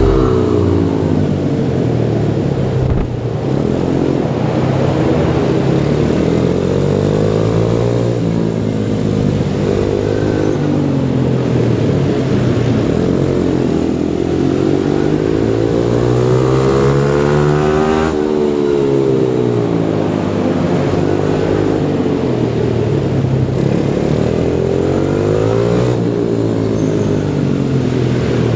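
Pit bike engine running hard, its pitch rising and falling over and over as the rider opens and closes the throttle through a lap.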